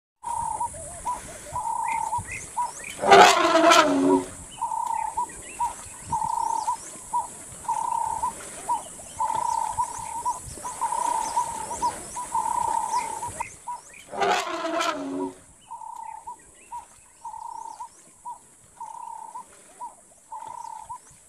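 African elephant letting out two loud roaring calls, each about a second long and falling in pitch: one a few seconds in, the other about fourteen seconds in. Between them a bird repeats a short note over and over, about once a second, against a steady high hiss.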